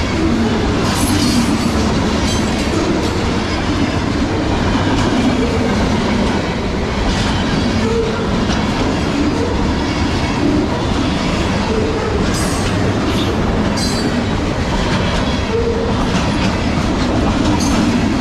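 Freight train cars loaded with double-stacked containers rolling past at close range: a steady rumble of steel wheels on the rails, with sharp clicks scattered through it as the wheels pass over the track joints.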